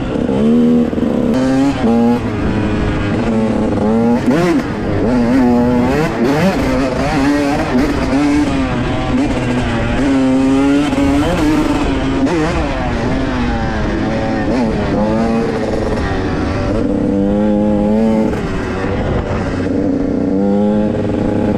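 Dirt bike engines running under changing throttle, the pitch rising and falling over and over.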